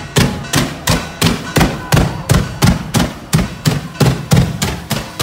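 Festival firecrackers going off in a fast, evenly spaced series, about three loud bangs a second.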